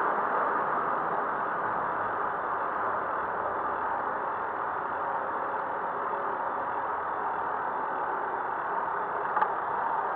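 Steady city traffic noise, with a single sharp click near the end.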